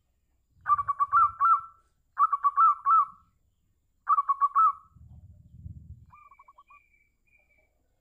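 Zebra dove (perkutut) cooing: three quick bursts of rapid staccato coo notes, then a fainter, shorter run of notes near the end. A low rumble sits under the first burst and again about five seconds in.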